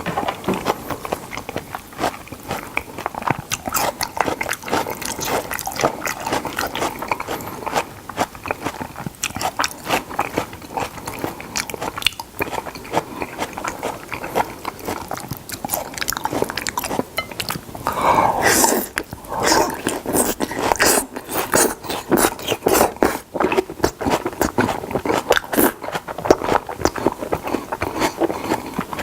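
Close-miked chewing of salmon: wet smacking and quick clicking mouth sounds in an irregular stream, busier and louder for a moment about two-thirds of the way in.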